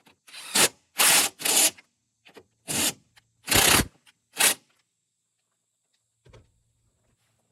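A 13 mm bolt being turned with a ratchet, rasping and scraping in about six short strokes over the first four and a half seconds, then stopping. The bolt sounds off as it turns, suggesting damaged threads or a worn bolt.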